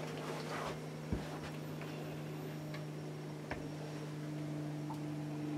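A steady low hum with a couple of faint ticks, about one and three and a half seconds in.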